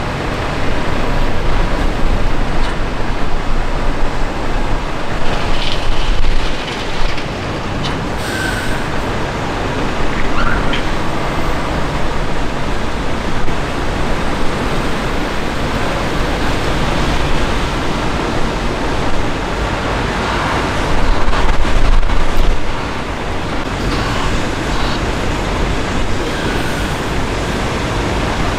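Heavy lorries' diesel engines running and their tyres rolling over the wet yard: a steady, rumbling noise that swells louder about six seconds in and again around twenty-one seconds.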